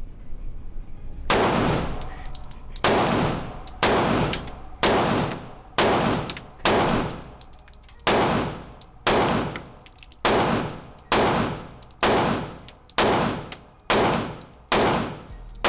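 About fifteen handgun shots fired one after another at a steady pace of roughly one a second, each sharp crack trailing off in a short echo.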